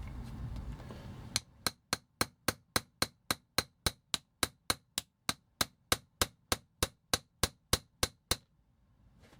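Small hammer tapping a metal pin punch to drive a rear wheel pin out of a die-cast toy car: over twenty quick, even taps, about three a second, stopping shortly before the end.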